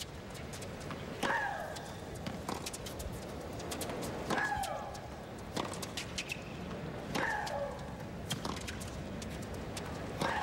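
Tennis rally: a ball struck back and forth by racquets about every one and a half seconds, with Maria Sharapova's loud, high shriek on each of her own shots, each cry falling in pitch, four times.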